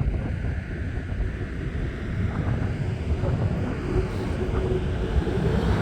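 Jet engines of a Boeing 737-800 airliner on approach to land, a steady low rumble growing slowly louder, with wind buffeting the microphone.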